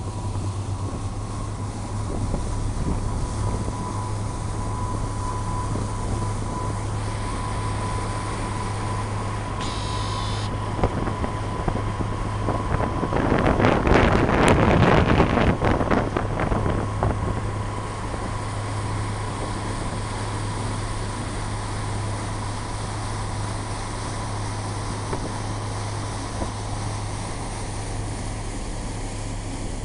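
Lake passenger ferry under way: a steady low engine drone with a faint steady tone above it, and wind on the microphone, which swells into loud buffeting for a few seconds about halfway through.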